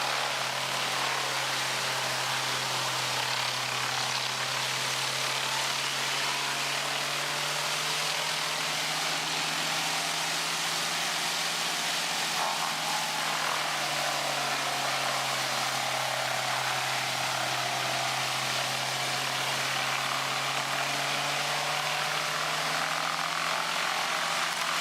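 Large industrial wood chipper or grinder running steadily: a constant low engine hum under a continuous hiss, with no let-up.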